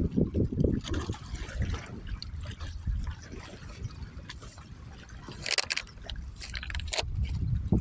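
Lake water lapping and splashing, with an irregular low rumble under it. There are a few sharper splashes about five and a half and seven seconds in.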